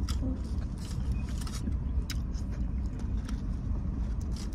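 Steady low rumble of a car idling, heard from inside the cabin, with scattered short clicks and rustles of food being handled.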